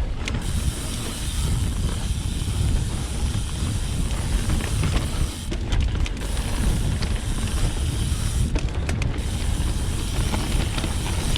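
2020 Orbea Occam H30 full-suspension mountain bike ridden fast down a bumpy dirt trail: a steady rumble of tyres on dirt and wind on the microphone, with clicks and rattles from the chain and frame over the bumps.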